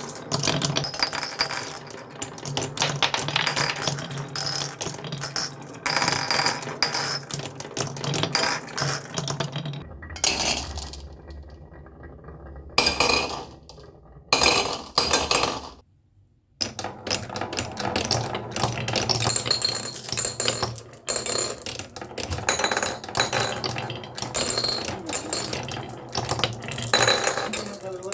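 Many marbles rolling and clattering down wooden marble run tracks, a dense run of clicks and clinks. Just past the middle it thins to a few separate bursts and drops out briefly before the clatter resumes.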